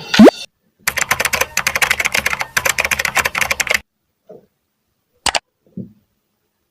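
Rapid typing on a computer keyboard for about three seconds, stopping abruptly, preceded by a short rising whoosh at the start; a single sharp click follows near the end.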